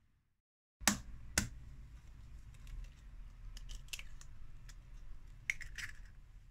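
Eggshells being cracked and broken open into a plastic mixing bowl: two sharp knocks about a second in, then lighter crackles and clicks as the shells are pulled apart.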